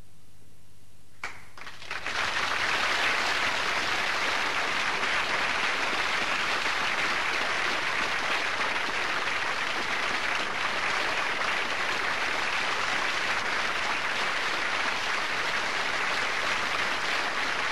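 Audience applauding, starting about a second and a half in and then holding steady.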